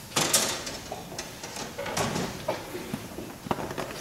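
Scattered knocks, thumps and scuffs of people and objects moving about on a dark stage. The loudest knock comes just after the start, with smaller ones near two and three and a half seconds in.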